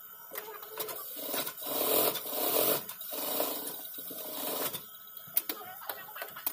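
Industrial sewing machine stitching upholstery fabric in two runs of about a second and a half each, then several sharp scissor snips near the end.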